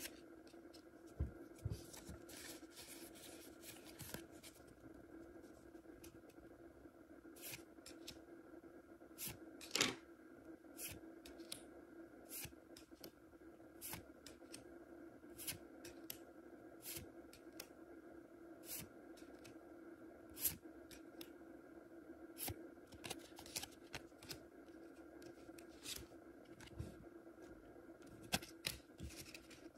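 Trading cards being handled one by one: short dry clicks and slides of card against card, one every second or two, over a steady faint hum.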